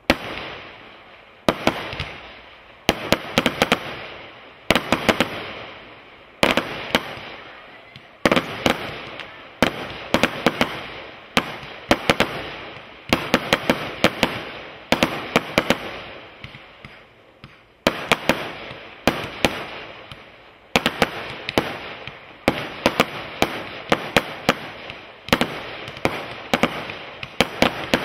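Brothers Pyrotechnics Grand Slam firework barrage firing shot after shot, about one a second. Each shot is a sharp bang followed by a fading crackle.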